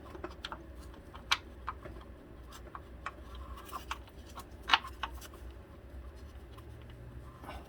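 Scattered light clicks and knocks as a belt tensioner is worked by hand to seat it on a Dodge 2.4 L engine, with the sharpest knock about two-thirds of the way through, over a steady low hum.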